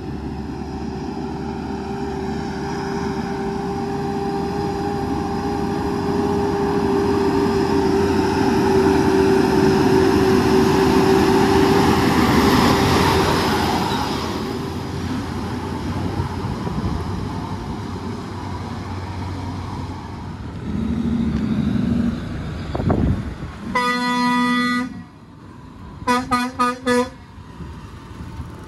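Truck engine running, swelling louder and then fading. Near the end a vehicle horn sounds: a short note, then a blast of about a second, then a quick string of four or five toots.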